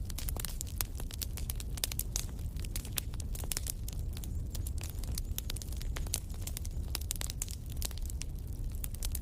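Wood campfire crackling, with many small irregular snaps over a steady low rumble.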